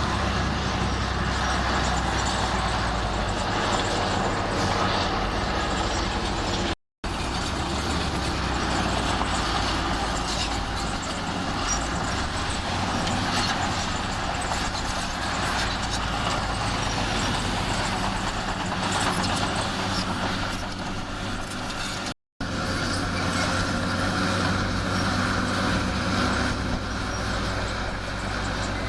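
Diesel engines of heavy earthmoving machinery running under load, a steady loud drone with low engine tones. The sound cuts out twice for an instant, about seven seconds in and again about twenty-two seconds in.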